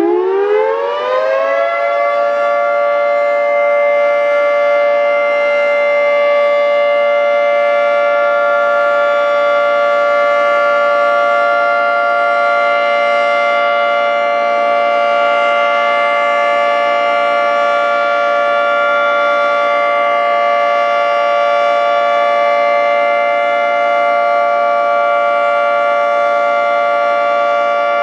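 Federal Signal 3T22 three-tone outdoor warning siren finishing its wind-up over the first two seconds, then holding a steady, loud chord of tones: the steady alert signal of a siren test.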